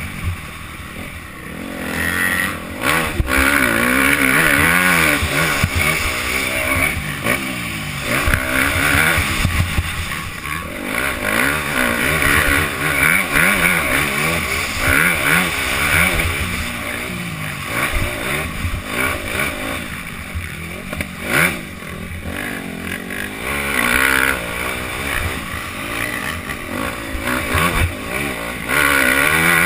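Motocross bike engine heard from the rider's helmet, revving up and dropping off again and again as it is ridden hard through the turns and straights of a sand track.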